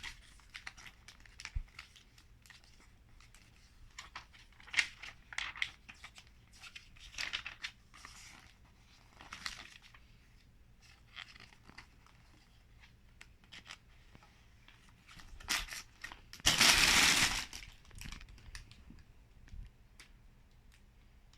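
LEGO set packaging being handled: plastic parts bags and wrapping crinkling and rustling in short scattered bursts, with light clicks. One louder, longer rustle comes about two-thirds of the way through.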